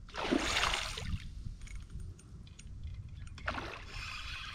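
Water splashing in two bursts, one in the first second and one about three and a half seconds in, as a hooked European chub thrashes at the surface, with light scattered ticking and a low wind rumble on the microphone.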